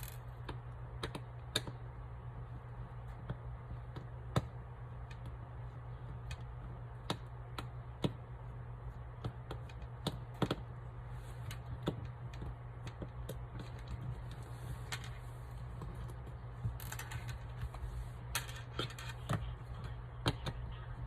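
Small screwdriver clicking and scraping against the screws and plastic housing of a BlueParrott B450-XT headset as its top screws are backed out: scattered sharp clicks, with a steady low hum underneath.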